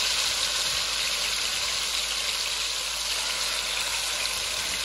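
Marinated chicken thighs frying in hot coconut oil, a steady sizzling hiss.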